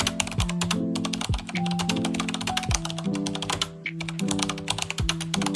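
Background music: held chords that change about once a second, over a low beat and rapid, clicky ticking.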